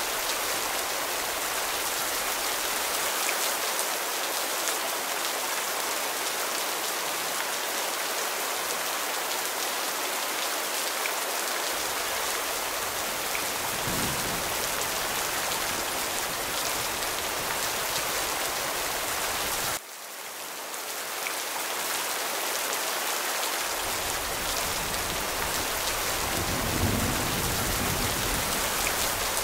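Steady heavy rain, a dense even hiss, with low thunder rumbling a little under halfway through and again building near the end. About two-thirds of the way in the sound drops suddenly and swells back within a few seconds.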